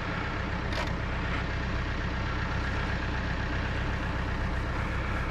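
Vehicle engine running steadily with an even, unchanging hum, as when pulling a loaded trailer.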